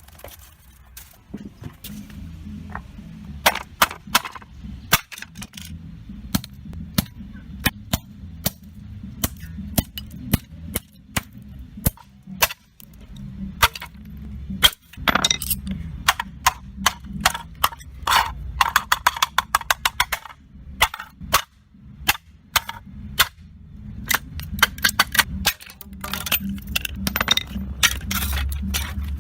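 A long series of sharp knocks and bangs, now single, now in fast runs of about ten a second, over low background music.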